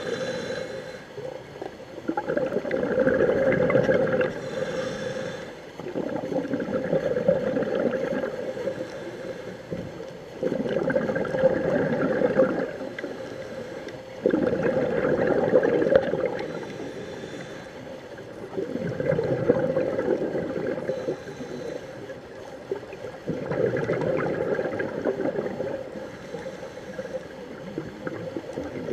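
Scuba diver's regulator breathing heard underwater: a gurgling burst of exhaled bubbles about every four seconds, with a fainter hiss between the bursts.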